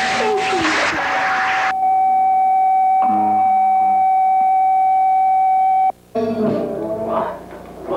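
Electronic synthesizer score: one steady high tone, like a dial tone, held over a hiss of noise. The hiss drops out after under two seconds and the tone sounds alone until it cuts off abruptly about six seconds in. After a brief gap, pulsing synth sounds begin.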